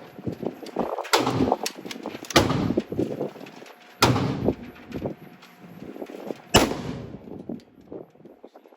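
Gunfire at a shooting range: several single shots at irregular intervals, each followed by a short smear of reverberation.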